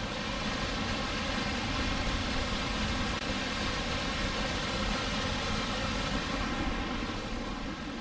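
Steady rush of a waterfall and the river tumbling below it, an even, unbroken noise.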